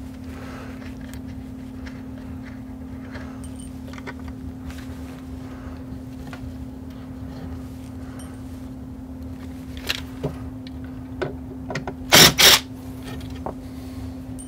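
Scattered clicks and handling noise from work on stubborn screws holding an amplifier in a wooden crate, with two loud knocks in quick succession about twelve seconds in, over a steady low hum.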